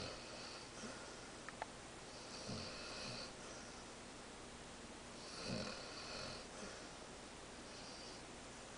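Dog snoring in its sleep, one snore about every two and a half seconds, with a high whistling note on each breath; the snore about five and a half seconds in is the loudest.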